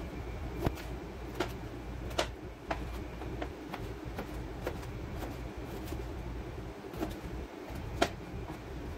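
Kitchen knife slicing raw potato into fingers, each stroke ending in a sharp click of the blade on the cutting board, irregularly about once a second, the loudest near the end. A steady low hum lies underneath.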